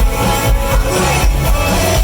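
Rock band playing live, drums and bass keeping a steady beat about twice a second under guitars and keyboards, with no singing in this stretch.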